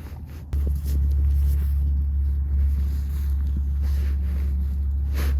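A loud, steady low rumble that starts abruptly about half a second in and holds.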